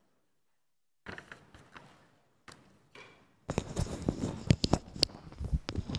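Handling noise from a clip-on lapel microphone. There are a few quiet rustles from about a second in, then about three and a half seconds in comes loud, dense rubbing and knocking as the mic is fumbled and unclipped from a shirt.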